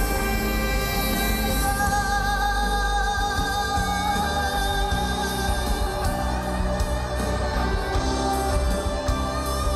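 Live band music from an outdoor concert, a male singer holding long, wavering notes over steady bass and accompaniment.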